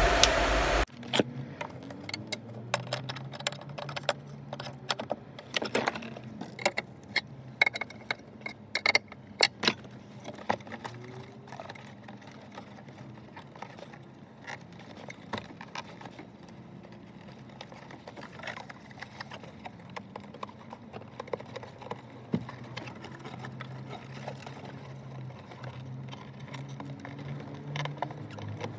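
A blower fan running at speed cuts off just under a second in. Then come scattered clicks and small metal rattles of screws and hand tools as the evaporator housing is fastened back in, denser in the first ten seconds, over a low steady hum.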